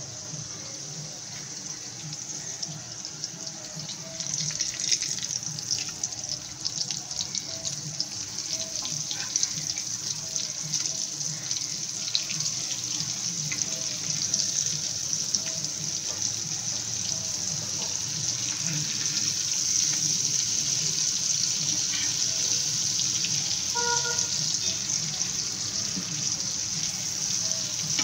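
Elephant foot yam slices shallow-frying in oil on a dosa griddle, their second side cooking after being turned: a steady sizzle with fine crackling that grows gradually louder.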